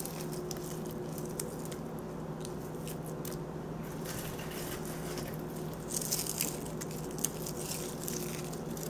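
Crispy fried bacon being crumbled by hand: light crunching and crackling, with a few sharper crackles about six to seven seconds in, over a steady low hum.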